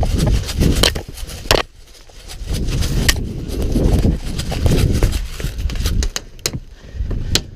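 Someone sprinting outdoors: heavy, uneven low rumble of running movement with footfalls, gear rattling and jangling, and sharp irregular clicks.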